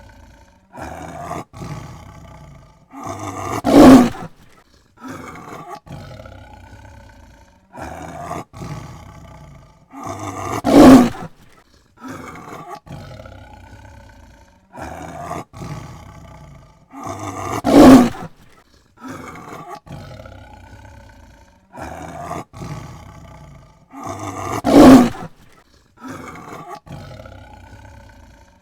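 Tiger roaring in a pattern that repeats about every seven seconds: two or three shorter, quieter calls, then one much louder full roar. The loud roar comes four times.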